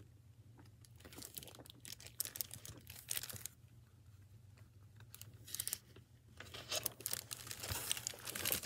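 Pages of a hardcover picture book being turned and handled, with the crinkle of its plastic-covered library jacket. The rustles come in short clusters, busiest near the end, over a faint steady low hum.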